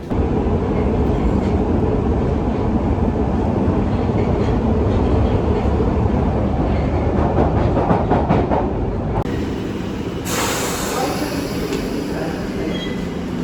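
Loud, steady low rumble of a moving vehicle, heard from inside while travelling. About ten seconds in, a hissing rush joins it.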